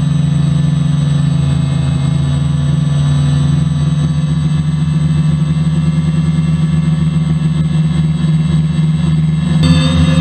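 DJI F450 quadcopter's four electric motors and propellers humming steadily in flight, several constant tones with a thin high whine above them. The tone shifts suddenly near the end.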